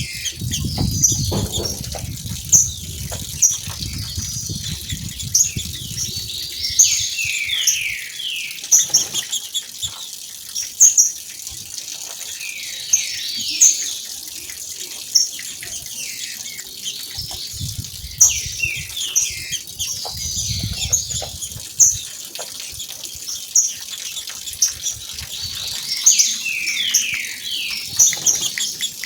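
Female green-winged saltators (trinca-ferro) calling: repeated short high chips and, every several seconds, a cluster of quick falling notes. A waterfall rushes underneath, swelling at times.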